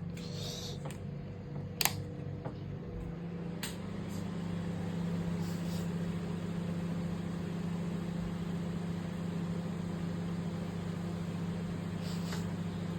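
Microwave oven running with a steady low hum while a bag of microwave popcorn heats inside. A few sharp single pops stand out, the loudest about two seconds in and another near four seconds: the first kernels starting to pop.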